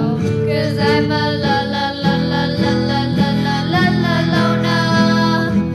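Music: an instrumental break in a song, with guitar and sustained notes over a steady accompaniment, getting a little quieter near the end.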